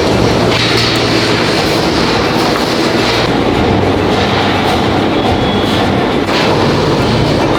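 Steady, loud rattling machinery din with a low hum, the running noise of factory equipment.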